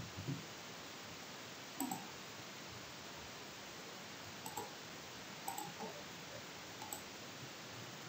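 Computer mouse clicks, about five short separate clicks spread across the stretch, over a faint steady hiss.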